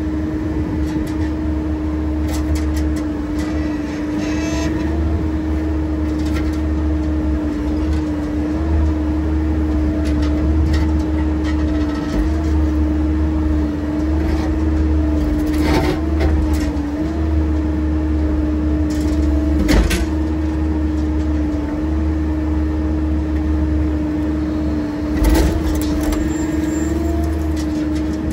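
Heavy excavating machine's engine running steadily with a constant hum and low rumble, broken by a few sharp knocks or clanks, the clearest about two-thirds of the way through.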